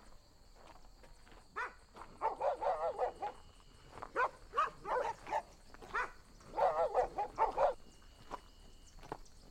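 Dog barking in several rapid volleys of short barks, with a lone bark near the end.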